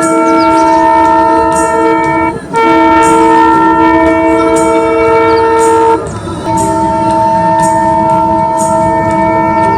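Alco WDM3A diesel locomotive's air horn sounding in long blasts, a chord of several steady tones held together, cut off briefly twice, about two and a half and six seconds in, over the rumble of the train.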